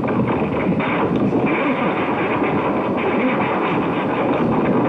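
Soviet-era radio jamming signal heard on a receiver: a loud, dense, steady noise that flutters rapidly and has no pauses.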